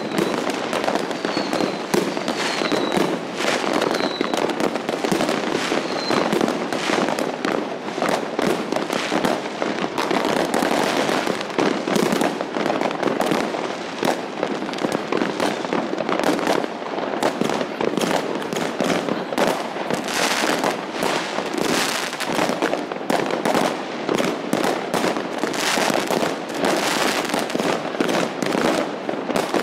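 Many fireworks going off at once all around a town: a dense, unbroken crackling and banging with no pause. A few short falling whistles sound in the first several seconds.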